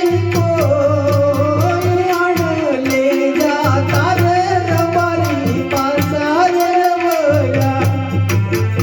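Gujarati devotional folk music: a held, gliding melody line over a quick, steady drum beat.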